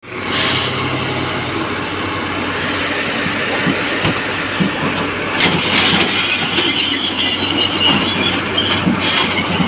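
Hitachi hydraulic excavator working, its diesel engine running steadily under load while the bucket pushes a large marble block across a truck's steel bed, with a few knocks of stone and steel.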